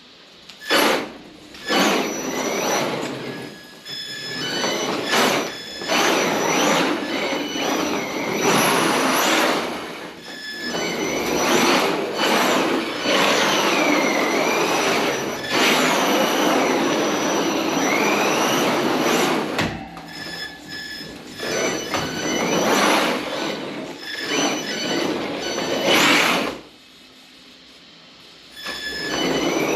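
Sakura D4 RC drift car running in repeated bursts, its electric motor whine falling and rising in pitch with the throttle, with squealing from the wheels; a short pause near the end.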